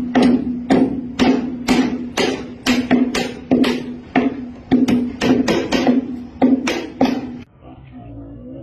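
Rapid series of sharp knocks, about three a second, over a steady low hum; the knocks stop about seven and a half seconds in, leaving a fainter sound.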